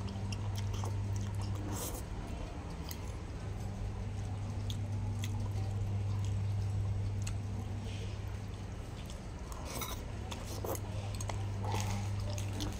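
A person eating chicken noodles: slurping, chewing and mouth sounds, with a fork and spoon clicking against the bowl now and then, over a steady low hum.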